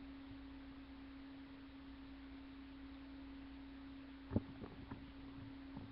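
A faint steady hum tone, with one sharp click about four and a half seconds in and a few fainter ticks after it: plastic K'nex connectors being picked up and handled.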